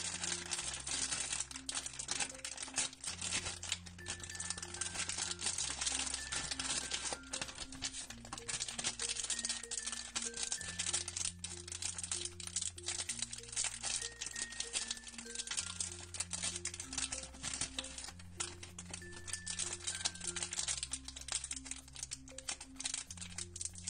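Plastic foil blind bag crinkling and rustling as it is opened and handled, with a bead chain clicking as it is pulled out, over background music with a repeating bass line and melody.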